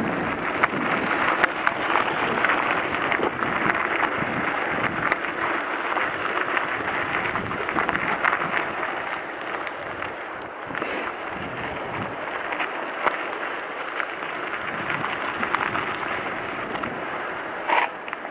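Mountain bike rolling over a gravel road: a steady crunching hiss of tyres on loose gravel, full of small ticks and rattles.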